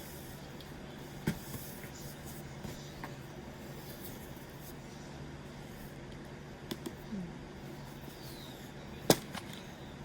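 Books being handled and set down while being sorted: a few short, sharp knocks, the loudest about nine seconds in, over a steady low hum.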